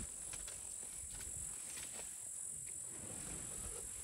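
Steady high-pitched insect drone with scattered faint crackles and clicks.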